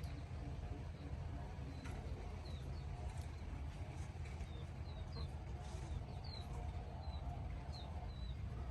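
Small birds chirping, short high chirps repeating from a few seconds in, over a steady low rumble.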